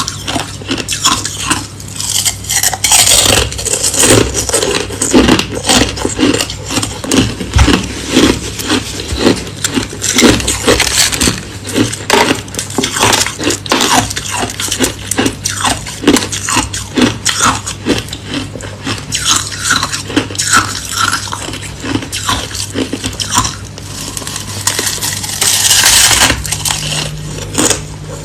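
Hard crushed ice being chewed close to the microphone: a dense, steady run of sharp crunches, about two or three a second.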